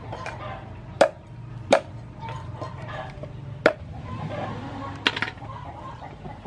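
A cleaver chopping mud crab on a thick wooden chopping board. There are five sharp chops, spaced irregularly: about a second in, just before two seconds, near four seconds, and a quick double chop around five seconds.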